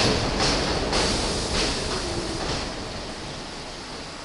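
R46 subway train braking to a stop in the station: its wheels click over the rail joints more and more slowly, and a low whine falls in pitch about two seconds in. The sound dies away to a steady low hiss once the cars stand still.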